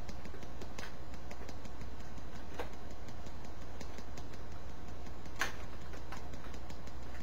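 Faint, irregular clicks of a thumb pressing the 'on' button of a flat LED-strip remote again and again, over a steady low hum.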